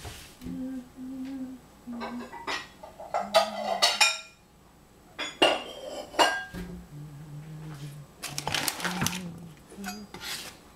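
Kitchen clatter of dishes and utensils: a ceramic bowl and other tableware knocked and set down on the counter, a series of sharp clinks and knocks in clusters with short pauses between.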